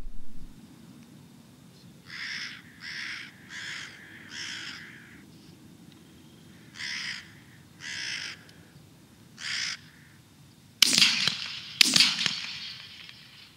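A crow cawing seven times, four calls in quick succession and then three more spaced out. Near the end, two shots from a 12-gauge Browning A5 semi-automatic shotgun about a second apart, each echoing away.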